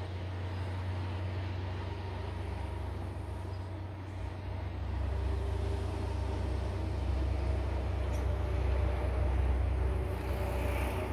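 Distant jet engines of a Boeing 737-400 on final approach: a low rumble with a faint whine, growing louder about halfway through.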